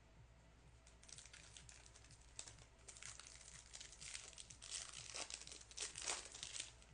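Foil wrapper of a trading-card pack crinkling and tearing as it is opened, in irregular crackles that start about a second in.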